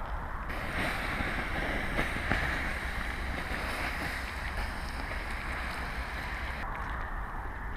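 Wind buffeting the microphone over a steady outdoor hiss, with a couple of faint ticks.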